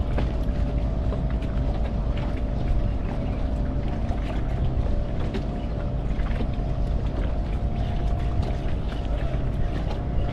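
A boat's engine running steadily with a constant hum and low rumble, with small splashes and ticks of water against the hull.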